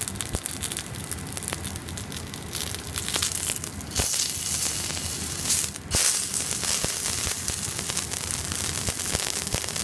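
Matsusaka beef fillet sizzling and crackling in hot fat in a frying pan while its sides are seared. The sizzle surges about four seconds in and again about six seconds in as the meat is set down on a fresh side, with a brief dip just before the second surge.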